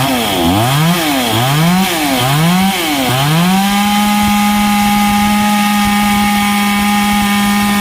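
Mainstay 52 cc two-stroke chainsaw revved in four quick throttle blips, its pitch rising and falling back each time, then held at a steady high-revving full throttle from about three and a half seconds in.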